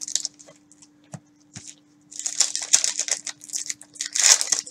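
Clear plastic cellophane wrapper of a trading-card pack crinkling and tearing as it is opened and handled, in quick bursts starting about two seconds in after a couple of light taps.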